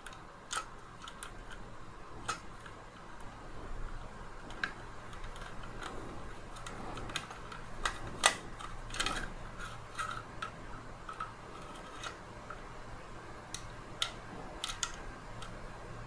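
Scattered, irregular light clicks and taps of a Dyson V10's plastic handle housing and small parts being handled and fitted back together, the loudest a little after eight seconds in, over a faint steady hum.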